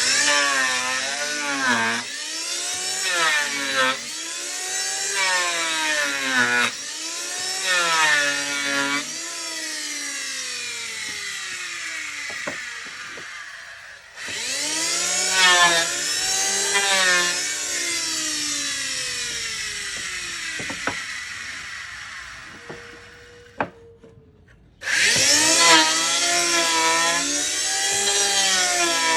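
Electric power tool cutting wood: its motor pitch drops under load and climbs back between cuts over and over. It is switched off twice and spins back up each time.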